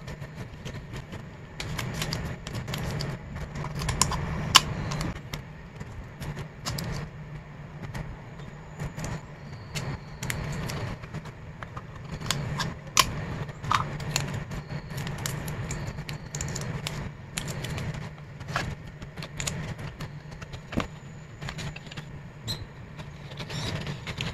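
Hands handling and packing photocards: plastic card sleeves and paper crinkling and rustling, with irregular small clicks and a few sharper snaps, over a steady low hum.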